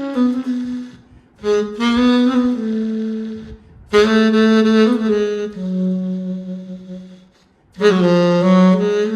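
VHorns sampled saxophone played live from an EWI USB wind controller: short melodic phrases of held, slightly sliding notes, broken by brief pauses about a second in, about four seconds in and near the end.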